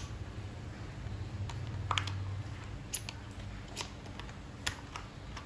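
A handful of light, sharp clicks, about five spread irregularly over a few seconds, over a faint low hum that is stronger in the first two seconds.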